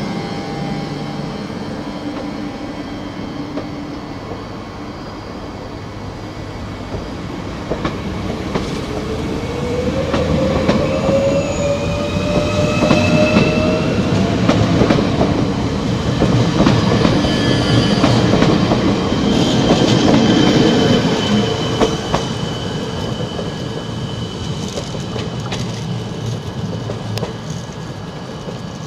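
Bombardier Regio 2N double-deck electric multiple unit pulling away past the platform, its traction motors whining up in pitch as it accelerates, over the rumble and clatter of its wheels on the rails. The sound swells in the middle and eases off toward the end.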